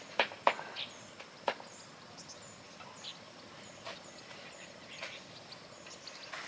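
Insects keep up a thin, high, steady drone that fades out about halfway through. A few sharp snaps or crackles come in the first second and a half, and small faint chirps repeat throughout.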